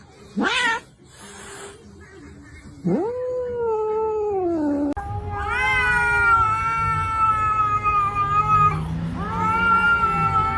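Cat yowling: a short rising meow, then three long drawn-out yowls, the first sagging in pitch at its end.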